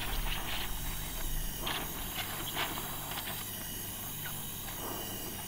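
Gas welding torch flame hissing steadily as it heats body solder on a steel sheet, with a few faint crackles.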